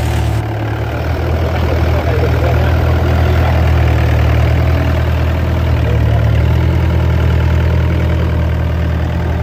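Diesel engine of a Hyundai 60-9 mini excavator idling steadily, heard close up at the open engine bay.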